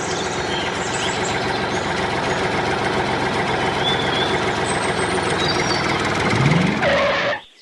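A machine running steadily, engine-like, with a few bird chirps over it; it cuts off abruptly near the end.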